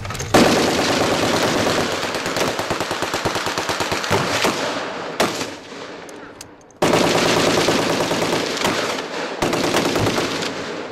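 Machine gun firing fully automatic in long strings of rapid shots. One long burst runs about six seconds, then comes a short break, then another long burst.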